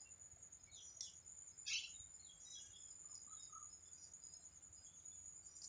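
Faint, steady, high-pitched insect trill, with a few short bird chirps scattered over it and one sharp click about a second in.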